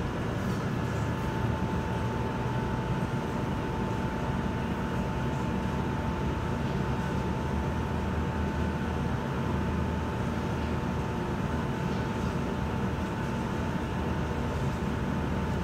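Steady low mechanical hum, unchanging throughout, with a faint constant high whine over it.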